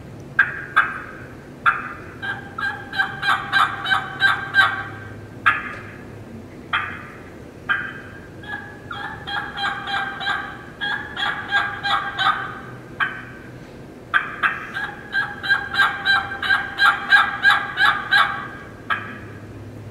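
Imitated hen turkey plain yelps from a turkey call, in several long runs of about four yelps a second with single yelps between them.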